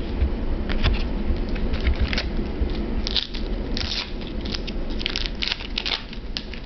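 Foil trading-card pack wrapper crinkling and crackling in the hands as it is torn open, in irregular quick bursts that come thickest in the second half.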